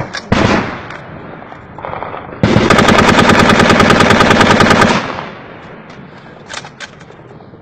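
Rifle firing on full automatic: a short burst just after the start, then a long sustained burst of rapid shots lasting about two and a half seconds, and two quick single shots near the end.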